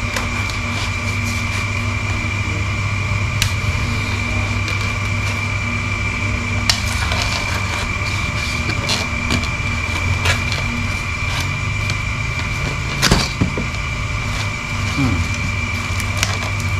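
A box and its packing being opened and handled: scattered crackles, taps and knocks, the sharpest about 13 seconds in, over a steady background hum with a thin high whine.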